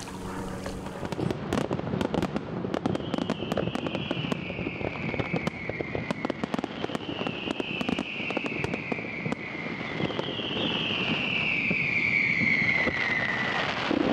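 Aerial fireworks going off: a dense, continuous run of crackles and pops, with three long whistles falling in pitch, each lasting two or three seconds, the last one the loudest. The display grows louder toward the end.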